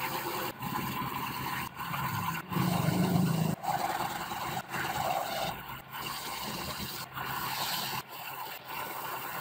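Sandpaper rubbing against a wooden clock face spinning on an electric-motor turntable, over the steady run of the motor. The scraping comes in stretches with brief breaks about every second, and a low hum is strongest about three seconds in.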